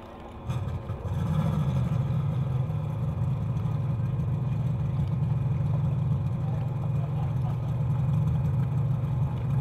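Outboard motor of a small tunnel-hull race boat firing up about half a second in, then running steadily as the boat gets under way.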